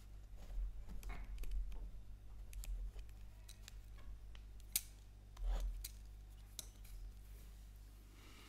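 Irregular small clicks and light knocks with a few low thumps, the sharpest click a little before the fifth second, over a steady low hum.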